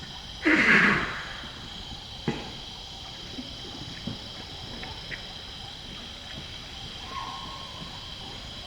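Greater one-horned rhinoceros giving one loud, breathy snort about half a second in, followed by a few sharp pops and clicks as it chews and digs into the clay of a mineral lick.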